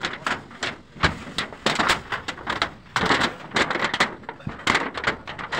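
Dense, irregular knocking and rattling as the Starlink dish and the phone are handled on a corrugated metal roof, the loudest clusters about one, two and three seconds in.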